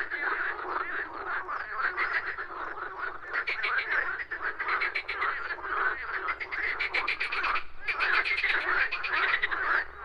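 A chorus of many frogs calling at once, fast croaking pulses overlapping without a break except for a short lull about three-quarters of the way through.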